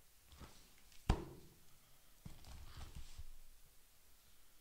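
Books and objects being handled on a desk: one sharp knock about a second in, then a couple of seconds of rustling and small bumps.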